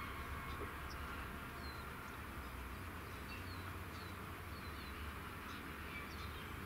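Small birds chirping, short falling chirps scattered at irregular intervals, over a steady low hum.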